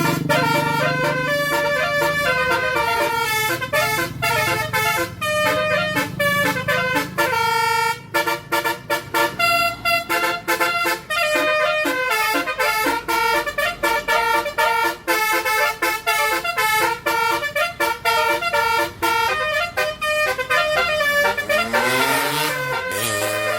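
Multi-tone Basuri 'telolet' bus horn playing a fast tune of short, abruptly switching notes. Near the end the tones slide down and back up in pitch, siren-like.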